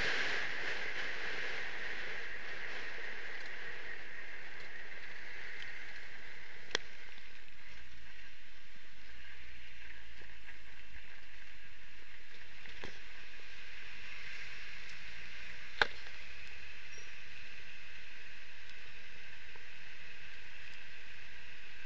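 Steady, muffled driving noise of a 1962 Triumph Herald 1200 on the move, mostly road and wind noise. There are two sharp clicks, about seven seconds in and again near sixteen seconds.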